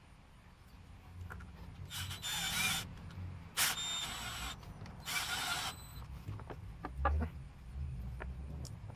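Cordless drill-driver running in three short bursts, each about a second or less, driving screws to fasten a strap onto a wooden shield. Light clicks and knocks of handling follow near the end.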